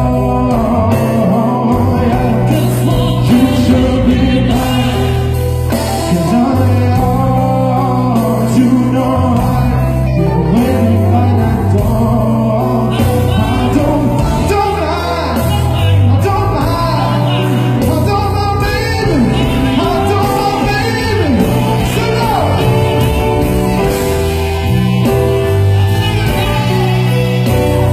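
A live band playing with a lead singer, loud and even, heard from the audience in a large hall: steady bass notes, guitar and drums under the sung melody.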